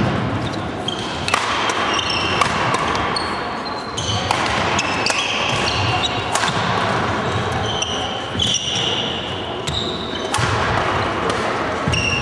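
Badminton rackets striking the shuttlecock in a fast rally, many sharp cracks, with short high squeaks of sports shoes on a wooden court floor.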